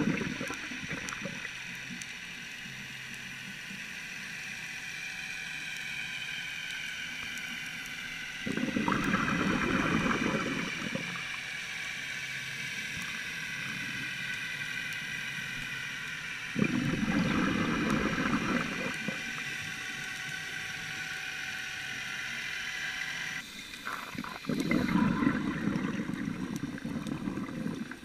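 A scuba diver's exhaled breath bubbling out through the regulator underwater: rushing, gurgling bubble bursts of two to three seconds each, one ending just after the start and three more about eight seconds apart, with a quieter steady hiss between breaths.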